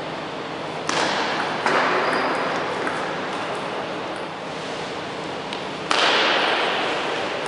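Table tennis ball clicking off bats and table during rallies in a large, echoing sports hall. The hall noise swells suddenly about a second in and again near the end, then fades.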